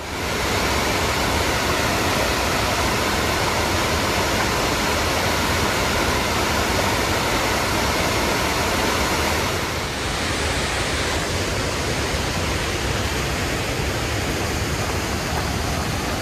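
Waterfall on a river rushing steadily, a dense, even noise with no breaks that dips slightly about ten seconds in.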